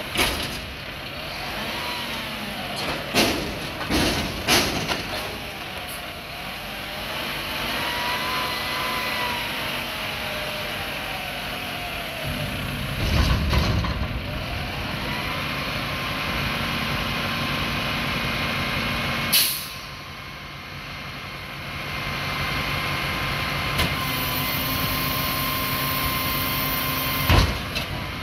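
Mack MRU garbage truck's engine revving up and down as the Heil front loader's arms lower the dumpster, with several metal clanks in the first few seconds and a heavy thud about 13 seconds in. A sharp air brake hiss comes about 19 seconds in, and after it the engine idles steadily, with one more clank near the end.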